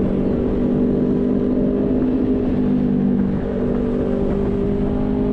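Vespa GTS scooter's single-cylinder four-stroke engine running at a steady cruise, heard from the rider's seat with wind and road rumble on the microphone. The engine note holds steady, shifting slightly about three and a half seconds in.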